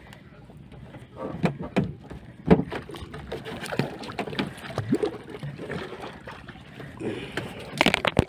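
Water splashing and sloshing against the hull of a small fishing boat, in irregular splashes and gurgles.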